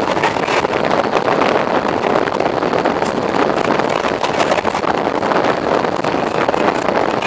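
Passenger train running at speed: a steady rumble and rush of wheels on the rails and moving air.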